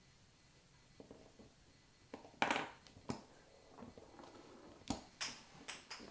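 Faint handling sounds from work on an NMEA 2000 field-attachable connector: after a quiet start, scattered light clicks and brief rustles of small parts and wires, with a short louder rustle about halfway through and several small clicks near the end.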